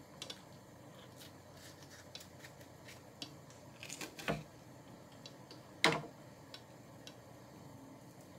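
Light clicks and taps of a kitchen knife and fingers on a wooden cutting board as a green chili pepper is slit and deseeded, with one sharper knock about six seconds in.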